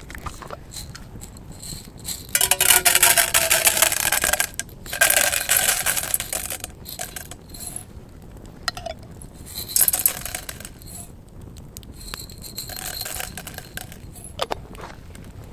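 Metal items, likely camp cookware or utensils, clinking and scraping in several bursts with a slight ringing. The loudest bursts come about two to six seconds in, with shorter ones near ten and thirteen seconds.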